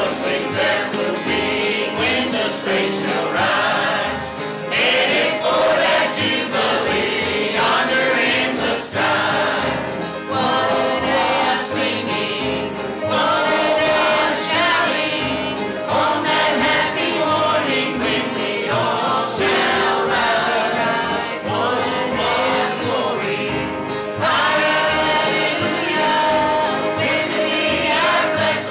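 A group of voices singing a gospel song together, continuous throughout.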